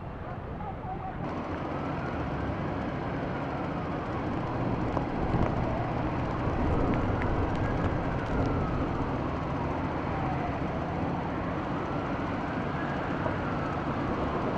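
An emergency vehicle's siren wailing slowly, rising and falling about every five seconds, three times, over a steady low rumble of vehicle noise.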